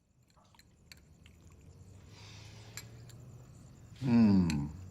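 A few faint clicks and soft handling noise, then about four seconds in a person's short voiced sound that falls in pitch.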